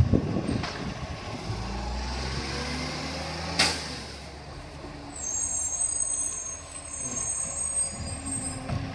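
Garbage truck's diesel engine pulling away, its note rising a little as it gathers speed, with a sharp knock right at the start. About three and a half seconds in there is a short, sharp hiss of air from its brakes.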